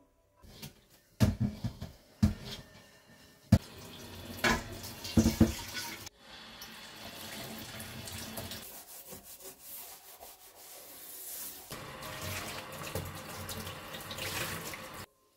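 Glassware and dishes clinking sharply about five times over the first few seconds. Then a kitchen tap runs into a stainless steel sink while a ceramic bowl is rinsed under it, and the water stops abruptly near the end.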